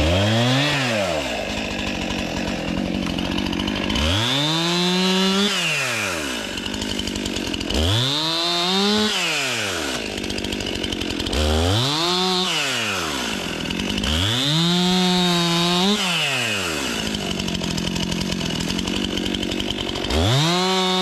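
Stihl gas chainsaw idling and being revved up to full throttle about six times to cut off small limbs, dropping back to idle between cuts.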